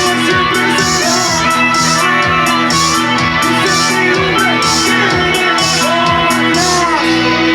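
Band playing an instrumental passage, guitar over a drum kit and bass. Near the end the drums stop and a held chord keeps ringing.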